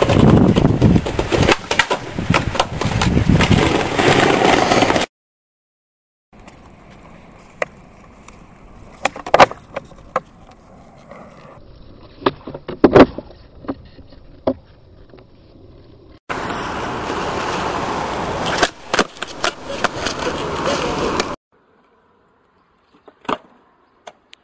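Skateboard flatground tricks on pavement: rolling wheels on the ground and the sharp clacks of the board popping and landing, heard across several clips. Two stretches carry loud rough rolling noise, and a quieter stretch between them has a dozen sharp clacks, with short silences at the cuts.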